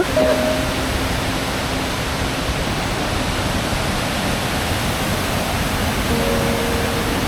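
Waterfall on the River Ure at Aysgarth's upper falls: fast-flowing water pouring over the rock steps, a loud, steady rush of noise.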